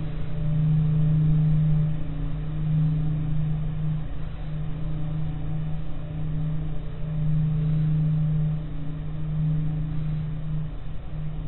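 Low steady hum with a fainter overtone above it, swelling and easing slowly in level. It is a 'space sound' sonification presented as the sound of asteroid (3533) Toyota.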